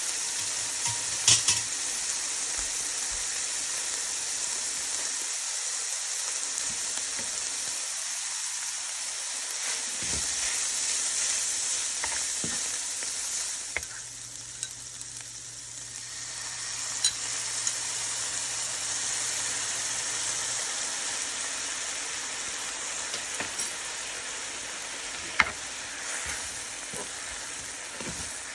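Food sizzling steadily in hot cooking oil in a pan, easing off briefly about halfway through, with a few sharp clicks here and there.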